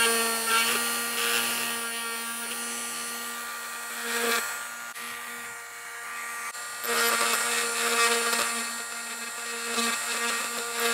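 A Dremel rotary tool running with a steady whine and grinding as its bit drills into the epoxy casing of a Dallas DS1287 clock chip to free the internal battery pins. The grinding eases off for a couple of seconds in the middle, then picks up again.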